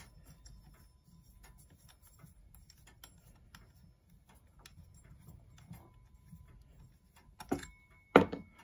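Faint clicking and rubbing as hands work at the bell on top of an antique grandfather clock movement to take it off, with a few louder knocks near the end.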